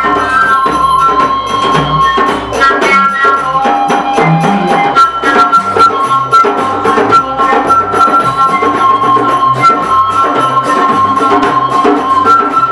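Live ethnic music: a vertical wooden flute plays a melody of long held notes over a goblet hand drum (darbuka) beating a steady rhythm and an electric bass guitar.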